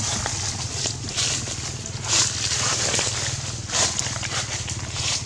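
Dry leaf litter rustling in short bursts, about four times, over a steady low rumble.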